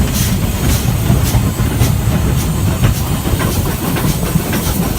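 A train hauled by a Stanier 8F steam locomotive on the move, with a steady low rumble and a regular hissing beat about twice a second.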